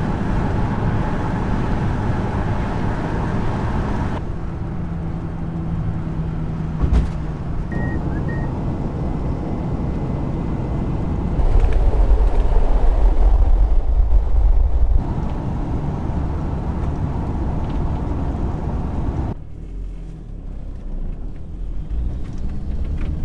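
A TDI-diesel-swapped VW Vanagon on the road: steady engine and road noise in several clips that change abruptly. The loudest clip, in the middle, has a heavy low rumble.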